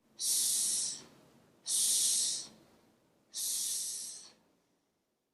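A person saying the English /s/ consonant on its own three times: a steady hiss lasting about a second each time, with short pauses between, the third one a little softer.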